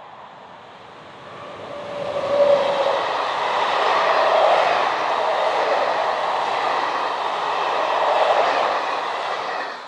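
SNCF BB 26000 electric locomotive hauling a train of Corail coaches past at close range. A rush of wheels on rail builds and is loudest as the locomotive goes by about two seconds in, then the coaches roll past in a steady rumble.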